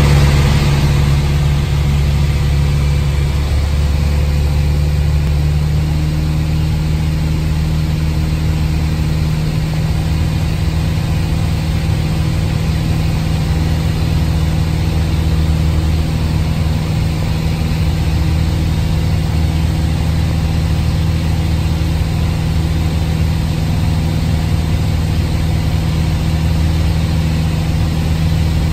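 Piston engine and propeller of a single-engine light aircraft droning steadily, heard inside the cockpit, running at reduced power on approach to land. A slight shift in the engine's pitch comes a few seconds in.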